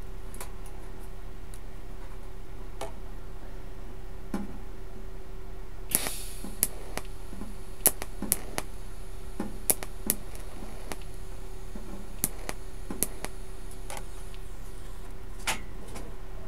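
TIG welding on thin sheet steel. A sudden crackle about six seconds in starts a thin, steady high hiss that lasts some four seconds, over a steady hum. Sharp clicks are scattered throughout.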